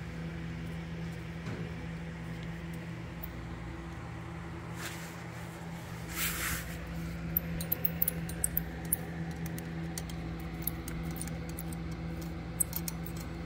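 Light metallic clicks and ticks of broken spokes and their nipples being worked loose by hand on a pit bike wheel, scattered through the second half, over a steady low hum. A brief hiss-like rustle comes about six seconds in.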